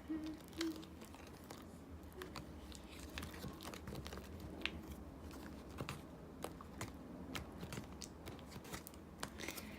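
Sticky glue slime, fluffed with shaving foam, being stirred and pressed with a chopstick in a container. It gives faint, irregular wet clicks and crackles.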